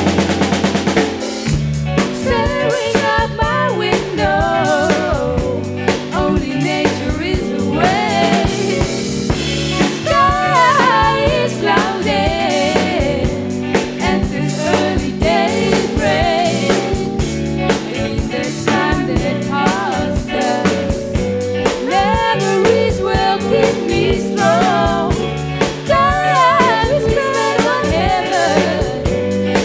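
Rock band playing a song live at a soundcheck: a singer over a drum kit with snare hits and the rest of the band. This is an old analog live recording.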